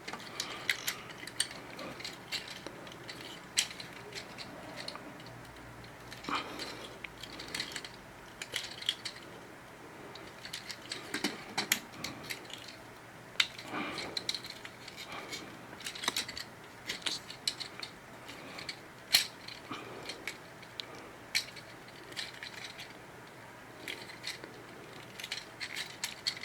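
Plastic action-figure joints and parts being turned and snapped by hand: irregular small clicks and ratcheting ticks from a Transformers toy being transformed, with faint handling rustle.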